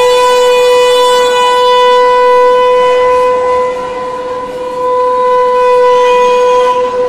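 A Border Security Force soldier's long, drawn-out shouted parade command, held on one high note and carried over loudspeakers. It steps up in pitch just before this stretch, then holds, dipping in loudness about halfway and swelling back.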